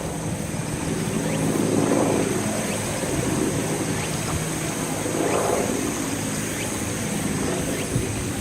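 Diesel railcar engine running with a low steady hum, while wind on the microphone swells twice in slow gusts.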